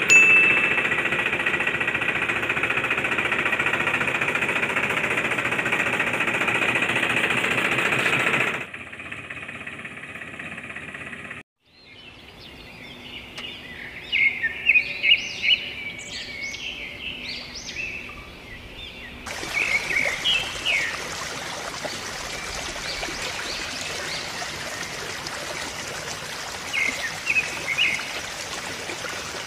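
A loud, dense, rattling machine noise that drops away about eight and a half seconds in. After a short break, birds chirp in quick bursts, and from about twenty seconds a steady rushing noise runs under the chirps.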